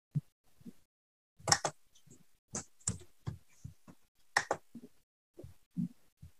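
Scattered clicks and taps of a computer mouse and keyboard being worked, picked up by a video-call microphone that cuts to silence between them. Two sharper clicks, about a second and a half in and again after four seconds, are the loudest.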